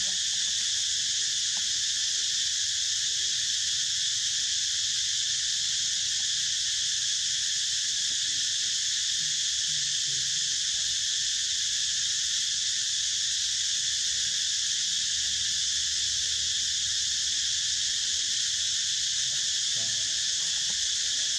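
Dense, steady high-pitched insect chorus, an unbroken shrill drone.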